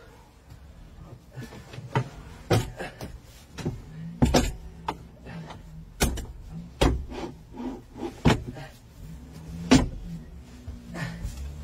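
Folding jump seat in a vehicle's cargo area being unfolded by hand: a string of sharp clunks and knocks, about seven spread across several seconds, as the seat frame and cushion are pulled down and latched into place.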